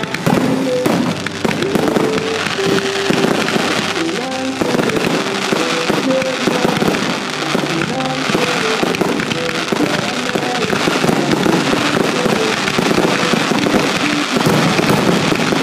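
Fireworks shells bursting and crackling in a dense, rapid barrage, with music playing under it.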